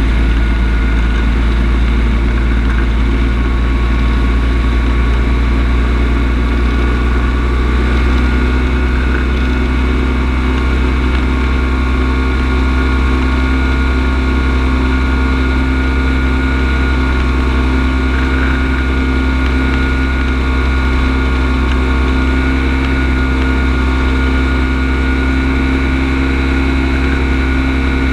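Kolb Firestar II ultralight's engine and propeller running steadily at an unchanging power setting, with a constant low drone and air rushing past the open cockpit.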